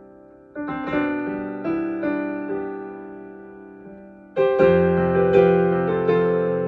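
Solo piano being played slowly and freely improvised: soft notes struck about half a second in and left to ring and fade, then a louder, fuller chord with deep bass notes a little past the middle, followed by more notes.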